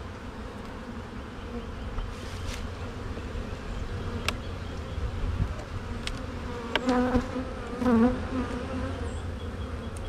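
Honey bees buzzing around an opened hive, a steady hum, with louder close buzzes about seven and eight seconds in as bees fly near the microphone. A few sharp clicks sound over it.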